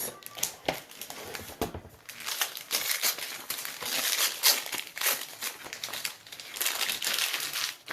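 Packaging crinkling and rustling as it is handled and unwrapped, with many small crackles and clicks.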